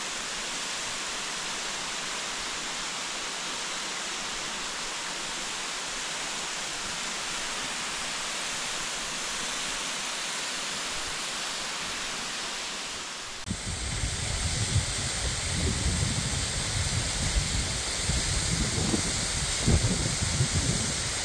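Steady rush of falling water. About halfway through it cuts abruptly to a rougher rush with gusty low buffeting of wind on the microphone.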